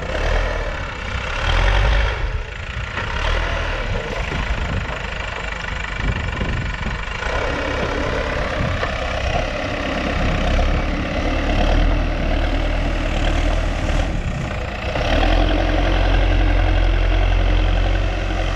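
Diesel engine of a JCB backhoe loader running steadily while working, its sound changing about seven seconds in and growing louder about fifteen seconds in as the load varies.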